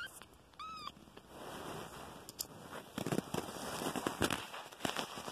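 A young kitten gives one short, high-pitched mew about half a second in. After it come soft rustling and crackling sounds as the kittens squirm against each other and the blanket.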